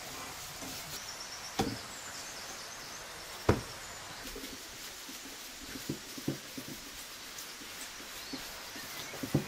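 Bread dough being worked and set down by hand on a table: a few dull knocks, the loudest about three and a half seconds in, and a run of softer thumps around six seconds. Birds chirp faintly in the background.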